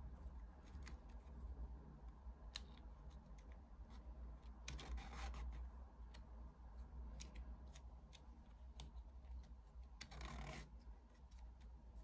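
Rattan reed strands rubbing and clicking as they are woven into the rim of a small rattan plate, with two longer rasps, about five and ten seconds in, as a strand is pulled through the weave. A faint low hum runs underneath.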